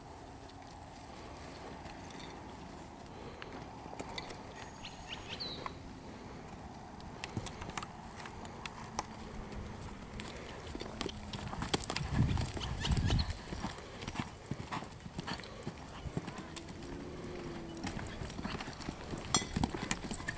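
Hoofbeats of an American Quarter Horse mare trotting and loping on arena dirt, as a running patter of knocks with a few heavier thuds about twelve seconds in.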